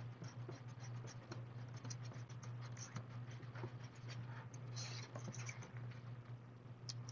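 Plastic spoon scraping and clicking around the inside of a small cup while stirring a thick mix of Mod Podge, water and plaster of Paris into a clay sealant, in quick, irregular scratches. A steady low hum runs underneath.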